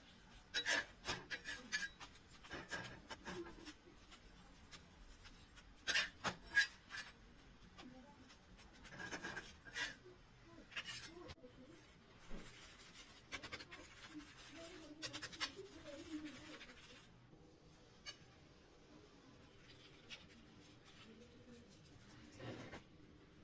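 Faint scraping and clicking of a steel spatula working a jowar bhakri on a griddle, in short bursts, followed by a few seconds of soft hiss in the middle.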